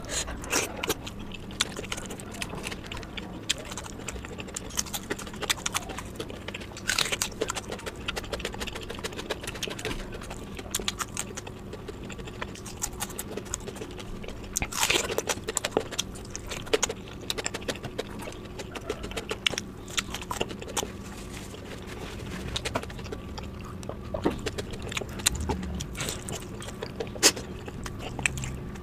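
Close-miked eating by hand: fingers squishing rice and curry against a steel plate, and wet chewing. Many short, irregular clicks over a faint steady hum.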